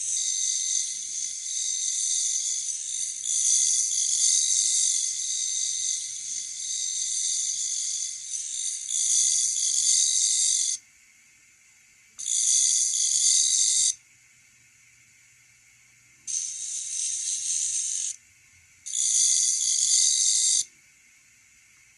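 Electronic sound effect of a homemade PKE Meter Mk II circuit played through a small speaker: a high, hissy, buzzing whine. It runs steadily for about eleven seconds, then cuts out and comes back three times in short bursts of about two seconds each.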